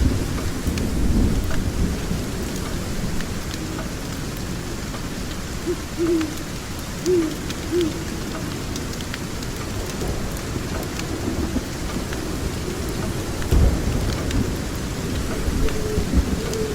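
Steady rain with low rolls of thunder, one at the start and another about 13 seconds in, and faint scattered crackles. Around the middle, a few short low hoots sound, like an owl calling.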